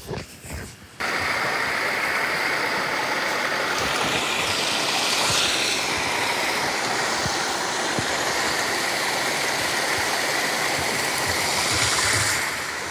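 Rushing water: a steady, loud, even rush that starts suddenly about a second in and eases off near the end.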